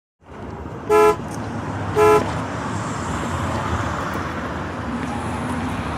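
Two short horn toots about a second apart over a steady, noisy traffic-like background.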